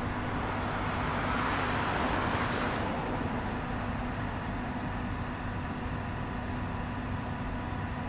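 Steady city traffic noise, with one vehicle passing that swells and fades away about three seconds in.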